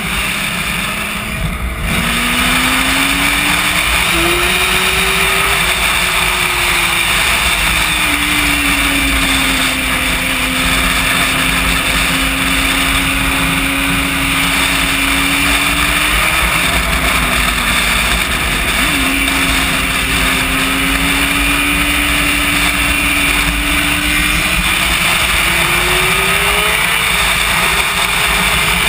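Sport motorcycle engine under way, with wind rushing over the microphone. The engine note climbs under acceleration about two seconds in and again near the end, drops back at each gear change, and holds fairly steady while cruising in between.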